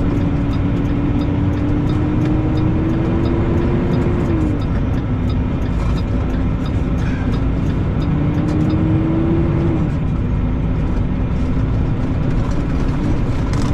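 International LoneStar semi truck's diesel engine heard from inside the cab, pulling up through the gears: its pitch climbs slowly and falls off at an upshift about four seconds in, then climbs and falls at another shift near ten seconds, over steady road noise.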